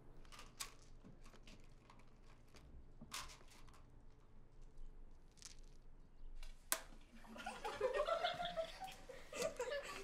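Scattered small clicks of plastic beads being handled at classroom desks, then from about seven seconds in, soft children's giggling.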